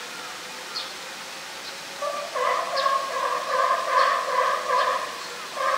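A loud, pitched animal call that pulses rapidly. It starts about two seconds in and breaks off briefly near the end before going on.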